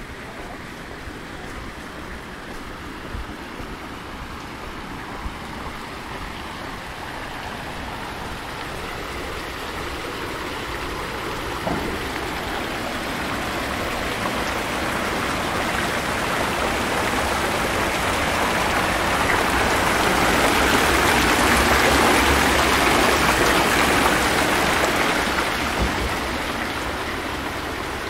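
Water from a stone and bronze market fountain splashing from its jets into the basins, a steady rushing splash. It grows louder as the fountain is approached, is loudest about three-quarters of the way in, then eases off.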